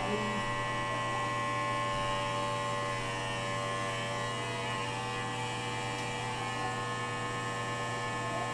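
Electric hair clippers running steadily, a constant buzzing hum.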